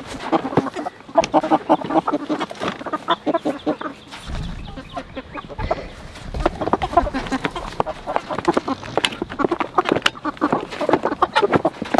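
Meat chickens clucking in a red plastic poultry transport crate, many short calls one after another, with a low rumble between about four and six seconds in.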